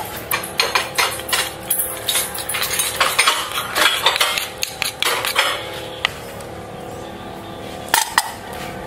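Utensils clinking and clattering against dishes in quick, irregular strokes. The strokes thin out after about six seconds, and two sharp clinks follow near the end.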